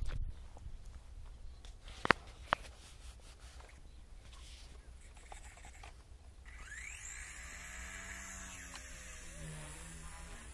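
Two sharp clicks about two seconds in. About two-thirds of the way through, the electric motor of a WLtoys V933 RC helicopter spools up with a rising whine, then holds a steady whine and rotor hum with small pitch changes as the helicopter flies.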